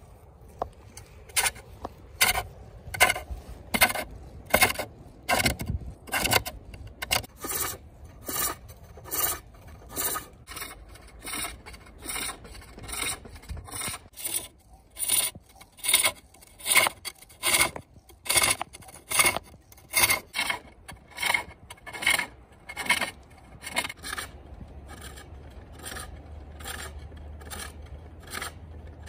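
Hook tool cutting a spinning wooden bowl blank on a foot-powered pole lathe: a rhythmic series of sharp scraping cuts, about three every two seconds, one with each treadle stroke that drives the work toward the tool.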